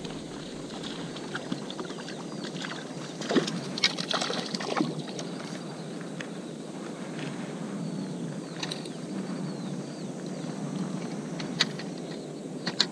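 A hooked crucian carp splashing and thrashing in the water as it is drawn in across a bed of water-chestnut weed, with a burst of splashing about three to five seconds in. A few sharp clicks near the end.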